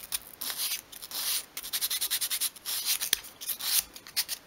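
A small piece of 120-grit sandpaper rubbed by hand over the edges of a glued-up block of obeche softwood, in quick, short scratchy strokes, smoothing the edges off. There is one sharp tick about three seconds in.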